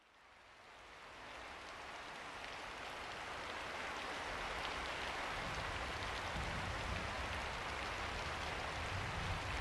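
Recorded rainfall: an even hiss of steady rain fading in from silence over the first few seconds, then holding steady.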